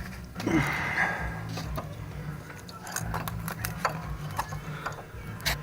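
Light metallic clicks and clinks of brake pads and their clips being handled and fitted into the caliper bracket, with a brief scraping rustle about half a second in, over a steady low hum.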